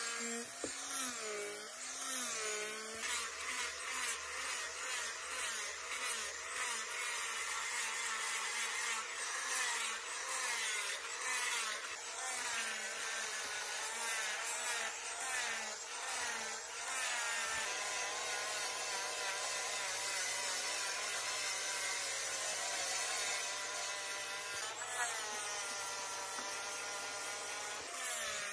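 Electric angle grinder with a sanding disc running against buffalo horn. Its motor whine rises and falls in pitch as the disc is pressed on and eased off, then holds steadier in the second half.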